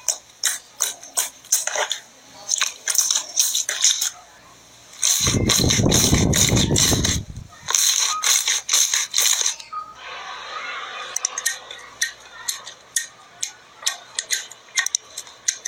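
Slime being pressed and stretched by hand: a run of sharp wet clicks and pops, with a louder, fuller squelch lasting about two seconds midway, then fainter clicking.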